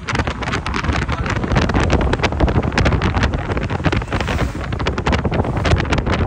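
Wind buffeting the microphone of a phone held at the window of a moving car: a loud, steady rush broken by rapid, uneven gusts.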